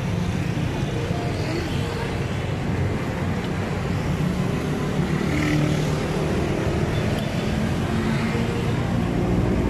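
Steady roadside traffic noise: a low, even rumble of vehicles on the street.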